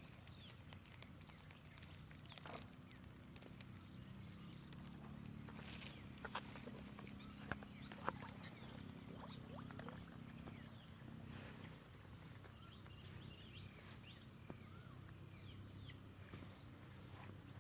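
Quiet outdoor ambience: a faint steady low hum, scattered small clicks, and faint high bird chirps.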